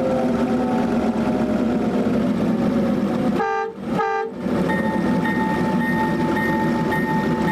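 Ride-on miniature GP9 locomotive's sound system playing a steady diesel engine rumble, broken about three and a half seconds in by two short horn toots. After the toots the engine sound returns, and the bell starts ringing about twice a second.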